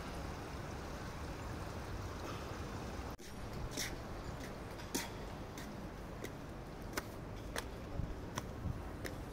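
Steady outdoor background hiss, then, about three seconds in after a brief dropout, a run of light sharp clicks roughly two a second: footsteps of someone walking up stone steps and across the sand.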